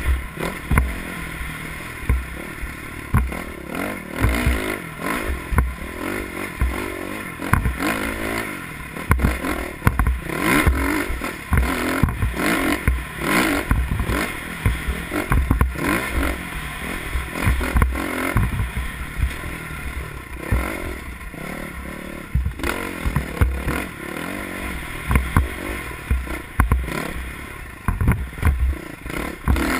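Off-road motorcycle engine heard from on the bike while it is ridden over rough ground, revving up and down continuously, with frequent clattering knocks and thumps.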